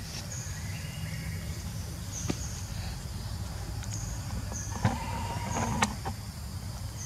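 Outdoor background: a steady low rumble with short high chirps every second or two, a few sharp clicks, and a brief steady tone about five seconds in.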